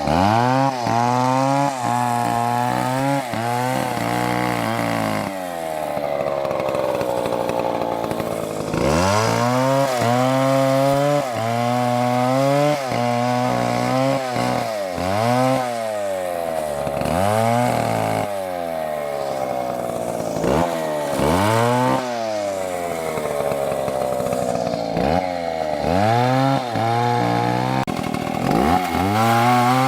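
Two-stroke chainsaw cutting wood: the engine runs at high speed and repeatedly drags down in pitch as the chain bites into the cut, then climbs back up, over and over.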